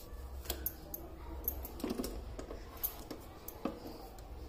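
Scattered light clicks and taps from a non-stick electric roti maker and the stiff, partly cooked chapati being handled on it, as the lid is closed and pressed down by its handle to make the chapati hard.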